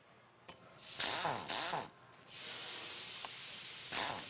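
Power driver with a socket running nuts down onto the bolts of a bolt solid plate conveyor belt fastener, tightening them. There is a short run about a second in, then a longer steady run from about two seconds in.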